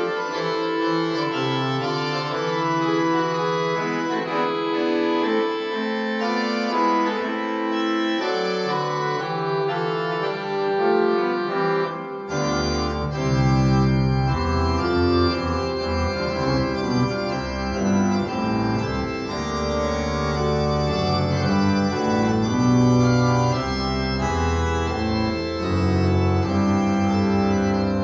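Three-manual church organ playing sustained chords. Deep bass notes come in about twelve seconds in and the sound grows fuller.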